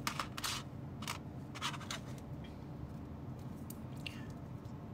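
Small hard plastic figure parts handled and fitted together: a few light scrapes and clicks as a clear plastic stand arm is worked into a small plastic Nendoroid figurine. Most of the scrapes come in the first two seconds, with one more near the end.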